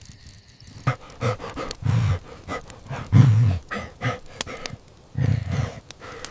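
A voice making a series of low, throaty grunts and growls in short bursts, about one a second.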